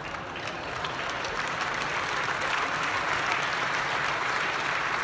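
Audience applauding: many hands clapping in a dense, steady patter that grows a little louder after the first second.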